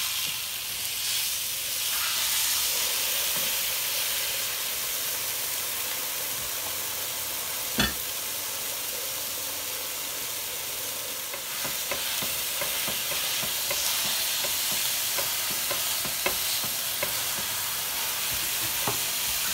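A coiled beef Italian sausage sizzling steadily on a hot stone-coated griddle. There is one sharp knock about eight seconds in and a few light clicks later on.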